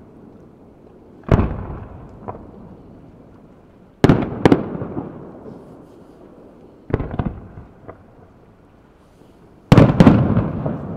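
Aerial firework shells bursting overhead as sharp booms, each fading in a rolling echo: one about a second in, a pair around four seconds, another pair with smaller pops around seven seconds, and a louder cluster near the end.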